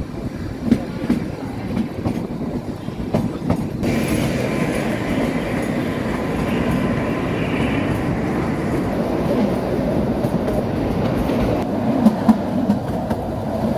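Kalka–Shimla narrow-gauge toy train running, its wheels knocking over the rail joints with a steady rumble of the coaches. About four seconds in the sound turns into a steadier rush with a faint higher hiss, and a few sharp clacks come near the end.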